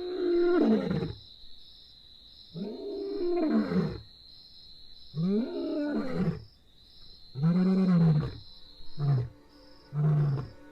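A lion roaring: four long, deep roars, each rising then falling in pitch and lasting about a second, followed near the end by two short grunts, the typical closing of a roaring bout.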